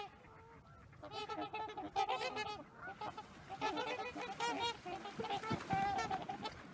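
A group of large waterfowl honking: many short, overlapping calls, starting about a second in.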